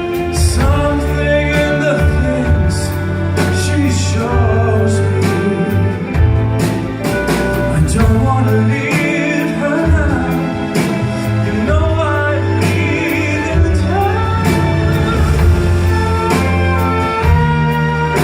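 Live band music: a slow ballad with a steady bass line under a lead melody that glides in pitch.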